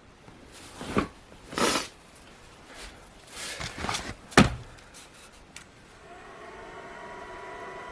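Tools and parts being handled: a few brushing knocks and a sharp click, then light ticks. About six seconds in, a steady electric hum starts, with a slight rise as it comes on.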